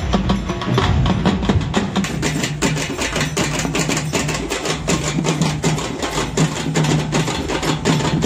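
A group of street drummers beating double-headed barrel drums with sticks in a fast, dense processional rhythm. A steady low tone sits under the strokes from about three seconds in.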